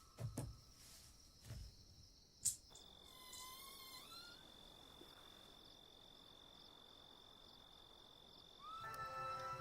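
Quiet night ambience of chirping insects, with a steady high cricket-like trill. There is a sharp click about two and a half seconds in, and near the end a held, pitched tone with many overtones begins.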